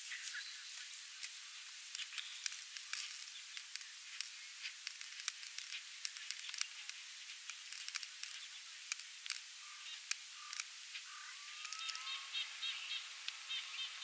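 Outdoor field ambience: a steady hiss with scattered sharp ticks. About two seconds before the end, a rapid, regular high chirping starts.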